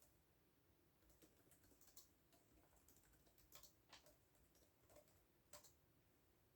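Faint computer keyboard typing: irregular keystrokes starting about a second in, with a few louder strokes in the second half.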